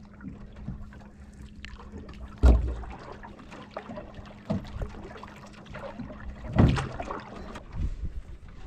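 Canoe being paddled: water trickling and dripping off the paddle with each stroke, and a few knocks on the hull, two of them loud, about four seconds apart.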